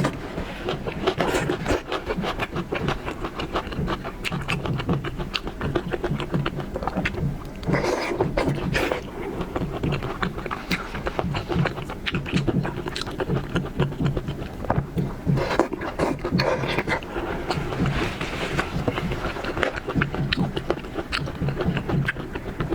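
Close-miked wet chewing and lip smacking of a person eating shrimp meat in spicy sauce, a dense run of small clicks and smacks.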